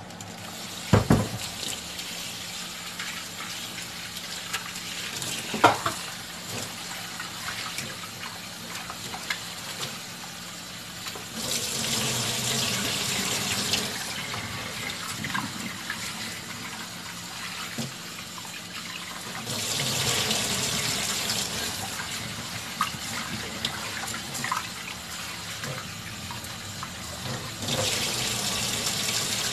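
Kitchen tap running water into a pot as rice is washed, with the flow coming through louder three times: around twelve seconds in, around twenty seconds in, and near the end. Two sharp knocks sound in the first six seconds.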